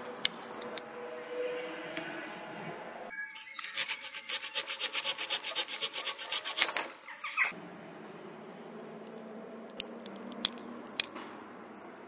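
Folding saw blade of a stainless steel multi-tool cutting a small tree branch, a run of quick back-and-forth rasping strokes for about four seconds, starting some three seconds in. A sharp metal click just after the start as the blade is unfolded, and three more sharp clicks near the end as the tool's parts are opened.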